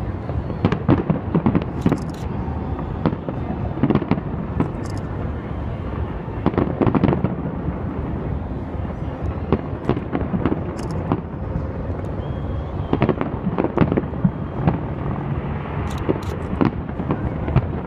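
Fireworks display: aerial firework shells bursting in an irregular run of sharp bangs and crackles, bunched in clusters, over a continuous low rumble.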